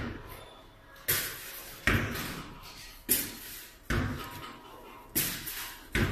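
Sharp blows on a hanging flexible LED pixel net, struck upward from below to test how tough it is: about six hard thumps, roughly one a second, each trailing off briefly.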